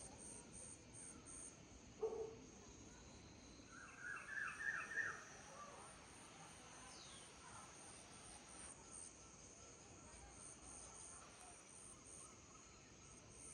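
Insects, crickets among them, chirring steadily with a high pulsing trill. A bird calls a quick run of about six short falling notes around four seconds in, and a short lower call sounds about two seconds in.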